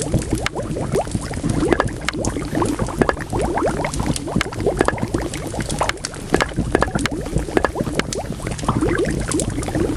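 Liquid bubbling at a steady boil, many small bubbles popping, over a wood fire whose sharp crackles and pops come irregularly throughout.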